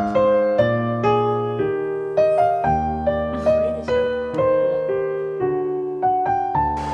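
Background piano music: a light melody of single notes over sustained bass notes.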